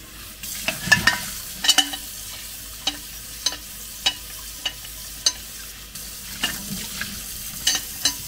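The inside of an aluminum Afghan kazan pressure cooker being scrubbed by hand with a cleaning solution: a wet scrubbing hiss with sharp clicks of the strokes against the metal, a little under two a second.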